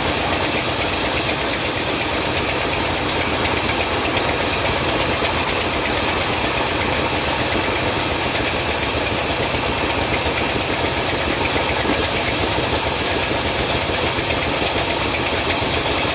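Sawmill saw running steadily while a round log is pushed through it on the saw table.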